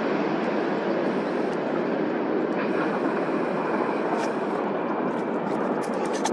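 Jet airliner engines, likely the Ryanair Boeing 737 on its landing roll, making a steady rushing noise that eases slightly toward the end.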